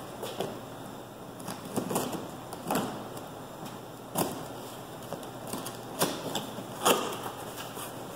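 Tape on a cardboard box being worked loose and peeled, then the box flaps opened: an irregular run of crackles, scrapes and taps, with about half a dozen sharper ones.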